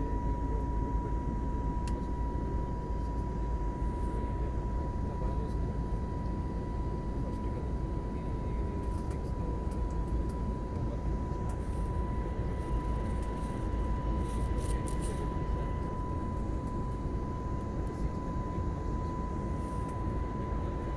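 Airliner cabin noise: a steady low rumble with a steady whine over it.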